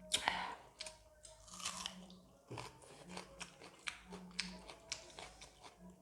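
Close-up mouth sounds of someone eating: wet chewing with repeated sharp smacks and small crunches, the loudest smack right at the start.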